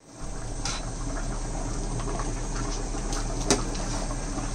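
Mutton broth boiling in a large aluminium pot, a steady bubbling hiss, with a sharp click of the stirring spatula against the pot about three and a half seconds in.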